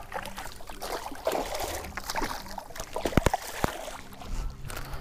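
Water splashing and sloshing against the boat's side as a hooked mahi-mahi is worked at the surface. A quick run of sharp knocks comes a little past the middle.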